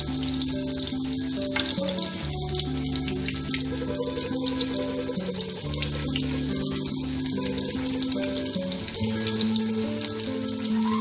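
Battered prawns deep-frying in hot oil: a steady sizzle with constant crackling. Background music of long held notes plays underneath.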